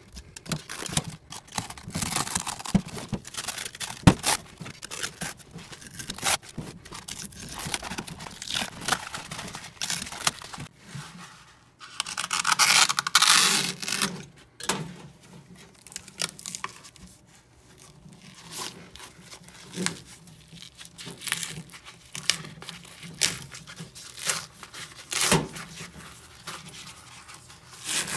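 Utility knife slicing through the fabric outer cover of an eSAPI body-armour plate while the cover is peeled and torn away, in irregular scraping and ripping strokes. There is one longer, louder rip about halfway through and a sharp tap about four seconds in.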